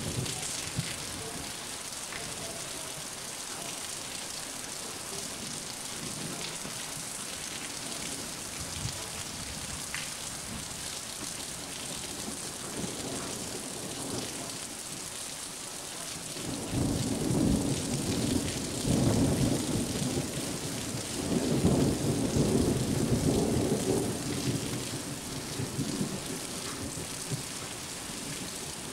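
Steady rain with a long roll of thunder. About halfway through, the thunder builds, rumbles for around ten seconds with two loud peaks, then fades back into the rain.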